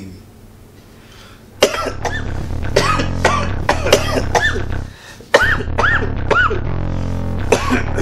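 A rapid series of coughs over music with a steady bass, starting about one and a half seconds in and coming several times a second in a fairly even rhythm, with a brief break about five seconds in.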